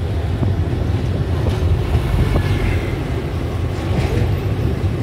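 Steady low rumble of a moving train, heard from at its window, with trucks passing on the road alongside.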